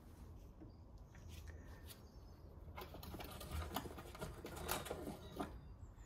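Faint, scattered light clicks and taps of metal parts being handled, most of them in the middle of the stretch, over a low steady background hum.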